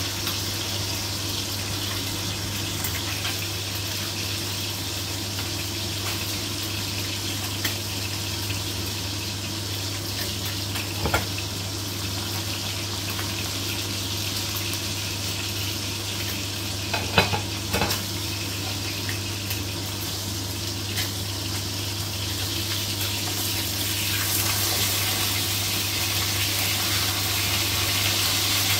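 Pre-boiled pork loin chops frying in oil in a wok: a steady sizzling hiss over a low steady hum, with a few sharp clicks around the middle. The sizzle grows louder in the last few seconds as the chops brown.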